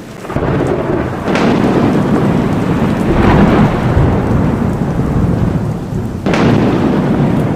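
Thunderstorm: heavy rain with a continuous rumble of thunder, and three sharp thunderclaps spaced a couple of seconds apart.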